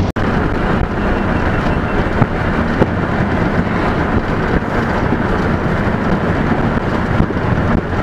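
Wind rushing over the microphone and road noise from a vehicle driving on a dirt road, a steady dense rumble that cuts out for an instant right at the start.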